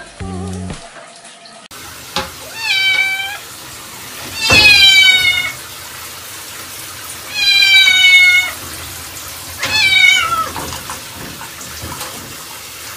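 A cat meowing loudly in protest at being bathed: four long, drawn-out meows, each about a second, falling slightly in pitch, a second or two apart.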